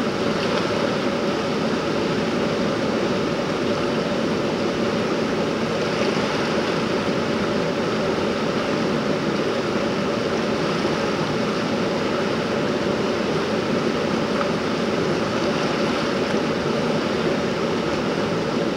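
Rushing water of a river running high and fast over rocks, a steady roar-like hiss with no breaks.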